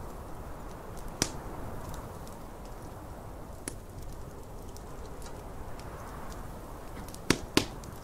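Wood fire crackling, with sharp pops about a second in, near the middle, and the two loudest close together near the end, over a steady rush of snowstorm wind.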